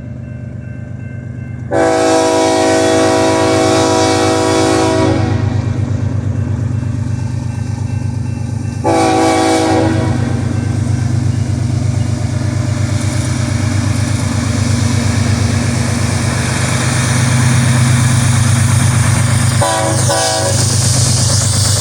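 Diesel locomotive of a double-stack freight train running with a steady low rumble that grows slightly louder. Its horn sounds one long blast about two seconds in, a short blast about nine seconds in, and a brief fainter blast near the end.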